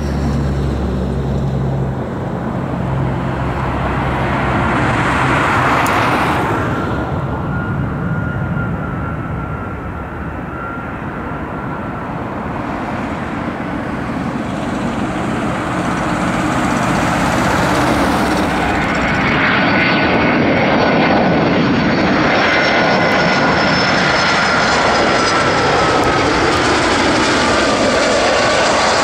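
Boeing 757-200 jet airliner on final approach with its gear down: a steady jet engine rumble with a thin whine over it, growing louder in the second half as the aircraft comes closer.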